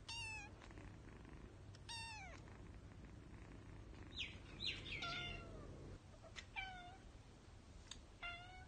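Kitten mewing repeatedly: about six short, high-pitched meows, each falling in pitch, one to two seconds apart.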